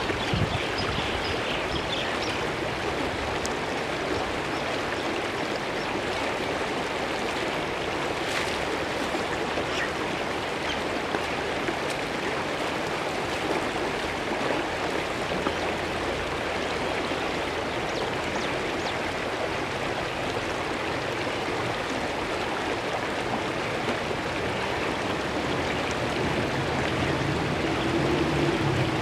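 Shallow, rocky stream running fast over stones: a steady rush of water.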